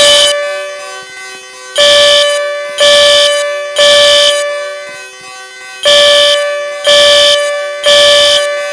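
Fire alarm horn sounding in the temporal-three pattern: groups of three loud buzzing blasts about a second apart, with a pause of about two seconds between groups. This is the standard evacuation signal, sounding here as an alarm test.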